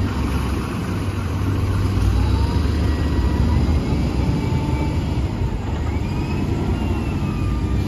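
Heavy machinery running steadily, with faint whining tones that slowly rise and fall.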